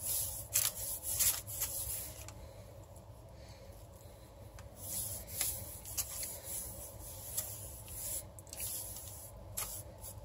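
A hand rubbing flour over raw bread dough and the parchment paper under it: soft brushing swishes in several short spells.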